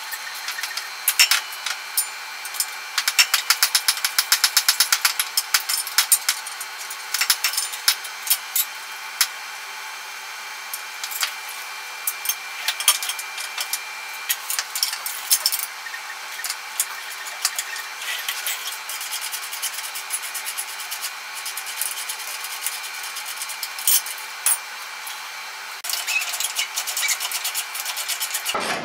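Hand tools working on metal parts: scraping, clinks and bursts of rapid clicking, with a dense run of quick even clicks a few seconds in, over a faint steady hum.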